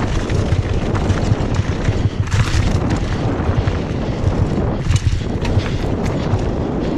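Mountain bike descending a loose, rocky gravel trail at speed: a steady rumble of the tyres over stones, with constant clattering and knocking from the bike over the bumps. Two brief rushes of noise come about two and a half seconds in and again around five seconds.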